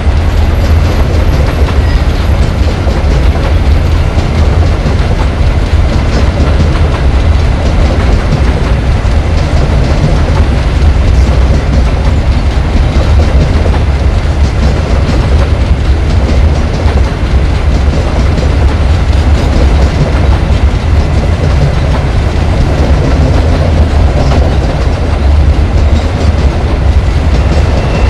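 Long Babaranjang coal train of empty hopper wagons rolling past on curved track: a loud, steady rumble of steel wheels on the rails that does not let up.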